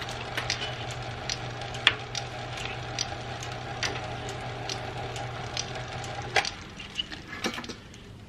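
Metal lathe running while a tool bit turns down a drill bit's Morse taper shank: a steady motor hum with scattered ticks and clicks from the cut. The lathe stops about six seconds in, followed by a few knocks.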